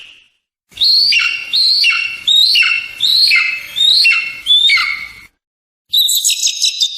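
Eagle calls: a run of about seven loud call notes, each falling in pitch, then a short pause and a quick burst of rapid chattering notes near the end.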